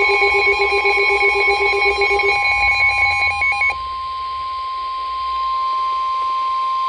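NOAA Weather Radio 1050 Hz warning alarm tone: one steady high tone, announcing a warning broadcast, that cuts off at the end. For about the first three and a half seconds it is overlaid by a fast-pulsing electronic beeping at several pitches.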